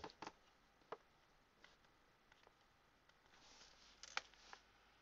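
Near silence with a few faint, short clicks and light knocks; the sharpest comes about four seconds in.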